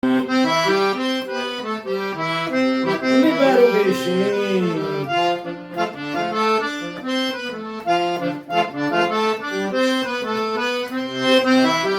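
Accordion playing a lively melody of quick, stepping notes as the instrumental introduction to a song, with a brief voice calling out about four to five seconds in.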